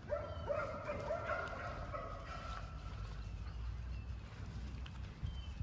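Eight-week-old puppies vocalizing in high-pitched, wavering growls as they tug on a line, for the first two to three seconds, over a low rumble.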